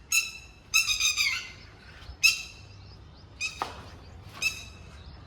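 Red-wattled lapwing calling in about five short bursts of sharp, high, rapidly repeated notes: an adult calling over its fallen, running chicks.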